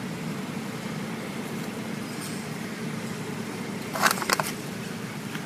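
Steady low background rumble, with a quick run of three or four sharp clicks about four seconds in.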